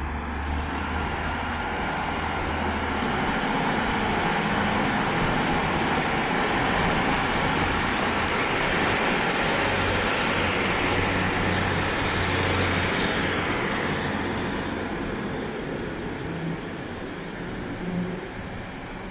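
Class 150 Sprinter diesel multiple unit pulling out under power. A low engine note at the start builds into engine and wheel noise as the train passes close by about ten seconds in, then fades as it pulls away.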